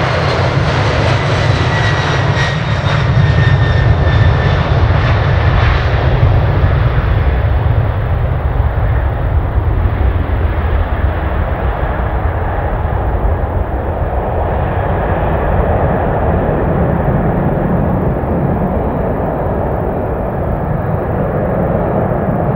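Boeing 767-300ER jet engines at takeoff thrust as the airliner rolls past and climbs away. A high fan whine falls in pitch over the first few seconds. Then the hiss fades after about seven seconds, leaving a low, crackling rumble.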